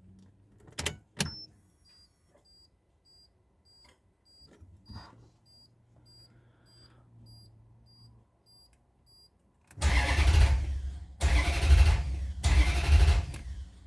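Two clicks, then a dashboard chime beeping about three times a second. Near the end the Maserati GranSport's 4.2-litre V8 is cranked by the starter in three loud bursts of about a second each and does not start, the hard-starting fault under investigation.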